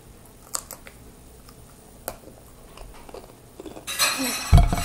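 Crunching Takis rolled tortilla chips: a few sharp, separate crunches while chewing with the mouth closed. Near the end comes a loud breathy hiss and then a heavy low thump.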